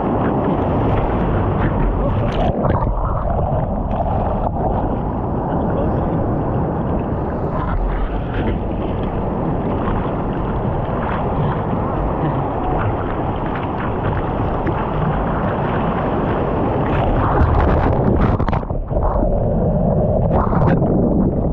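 Ocean water rushing and splashing against a surfboard, heard from a camera mounted on the board, with wind buffeting the microphone. Several sharper splashes come near the end as a breaking wave's whitewater washes over the board.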